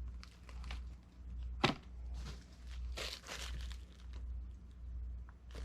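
Rustling of plastic packaging as a camera base plate is handled, in a few short bursts, with one sharp click about one and a half seconds in. A low, steady hum runs underneath.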